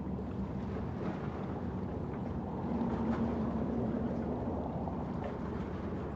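Steady low rumble of distant engines, from road traffic and airshow aircraft, with a humming tone that swells about two and a half seconds in and fades about a second and a half later.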